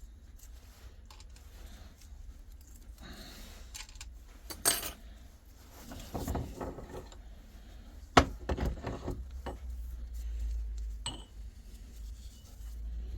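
Steel gearbox parts clinking and knocking against each other and the bench as they are handled during disassembly of a robotized manual gearbox. The loudest knocks come about four and a half seconds in and again about eight seconds in.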